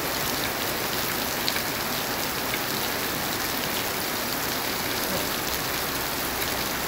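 Heavy rain pouring onto a paved street and parked cars: a steady hiss, with a few sharper drops standing out.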